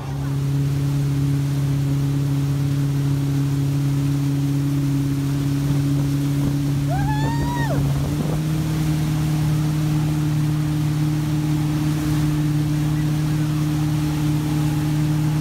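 Motorboat engine running steadily at towing speed, with wake water churning behind the boat; the engine pitch steps up slightly about eight seconds in as the throttle is opened a little.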